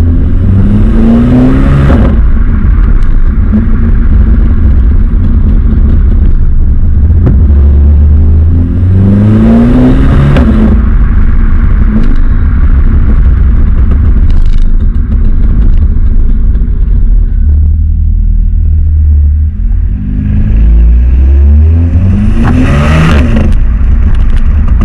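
Volkswagen Golf 7 R's turbocharged 2.0-litre four-cylinder exhaust, loud, accelerating hard three times, each rise in pitch ending in a sharp crack at the gear change, between steadier cruising rumble.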